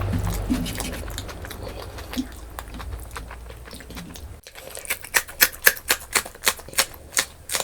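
Close-miked eating sounds: soft chewing over a low rumble. About two-thirds of the way through, a sudden cut gives way to a run of sharp, crunchy chewing clicks, about three or four a second.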